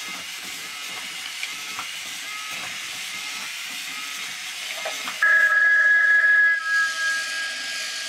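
A servo-driven telephone robot moving through its walking routine with a steady hiss and light ticks. About five seconds in, a loud electronic telephone-bell ring starts, a steady two-tone buzz that breaks off briefly and carries on.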